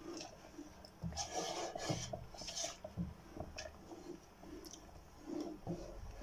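A wooden spoon stirring a thick chickpea curry in a speckled non-stick pot, scraping and rubbing against the bottom and sides in irregular strokes. The stirring is busiest between about one and three seconds in.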